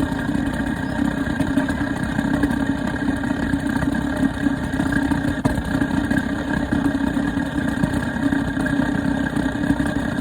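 Dometic hot water heater running with a steady, loud rumbling drone and a constant higher tone over it, the noise that is the heater's problem.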